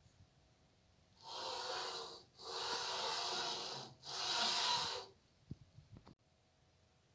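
Laser head carriage on a steel linear guide rail, pushed by hand along the rail in three strokes. Each stroke is a rasping hiss about a second long.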